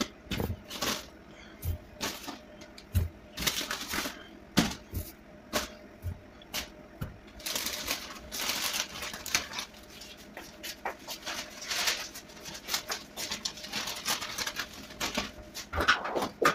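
Potatoes knocking and clicking irregularly as they are handled and picked out of a metal wire vegetable drawer. Around the middle comes a rustling scrape as loose sprouts and dirt are brushed off the drawer's liner.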